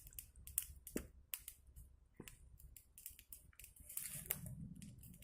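Campfire crackling quietly: irregular sharp snaps and pops, with a brief hiss about four seconds in.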